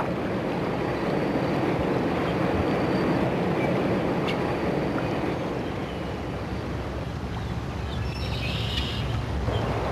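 Steady rushing of fast river water flowing past a drift boat, mixed with wind on the microphone.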